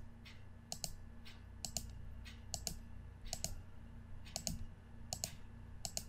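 Computer mouse button clicking about once a second, each click a quick press-and-release pair, as the points of a curve are placed one after another.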